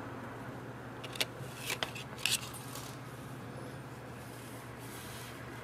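A few short scrapes and clicks between about one and two and a half seconds in: the soldering iron or a metal tool scraping against the tiny circuit board during hand soldering, over a steady low hum.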